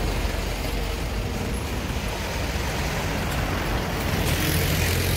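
Truck engine idling with a steady low hum under a rushing noise.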